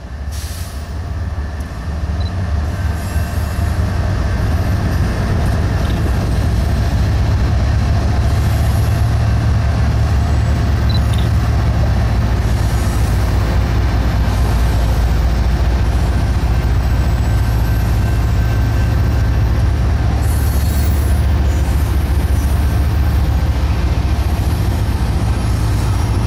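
BNSF double-stack container train rolling past: a steady low rumble of wheels and well cars on the rails, building over the first few seconds and then holding steady.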